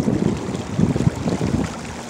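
Wind buffeting the microphone in uneven gusts, easing off toward the end, over light water splashing along a moving kayak's hull.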